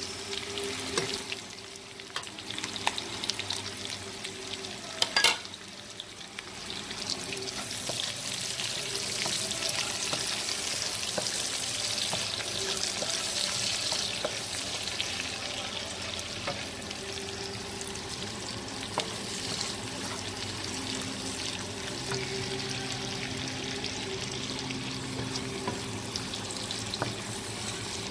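Chopped onion, ginger and garlic sizzling in hot rendered pork fat in a wok, stirred and scraped with a wooden spatula; the sizzle grows louder about eight seconds in and stays steady. A sharp knock about five seconds in.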